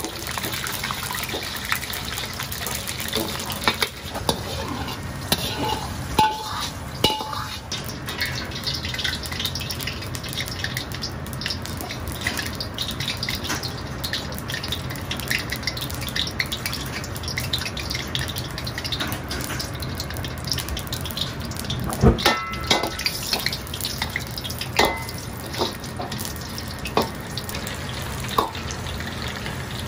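Oil bubbling and sizzling in a wok as garlic cloves and then battered chicken thigh pieces deep-fry in olive oil, over a steady low rumble from the wok burner. A metal ladle clinks against the wok throughout, with one loud clank about 22 seconds in.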